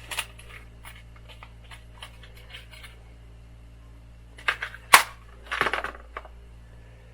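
Small metallic clicks and rattles of an X-Acto hobby knife's blade being changed, with one sharp click about five seconds in followed by a short scraping rattle.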